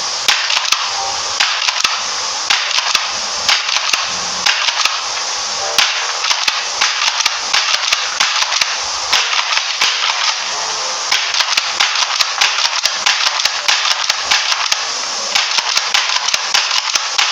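Airsoft pump shotgun being worked and fired again and again at a cardboard box: many sharp, irregular clicks and snaps, several a second, over a steady hiss.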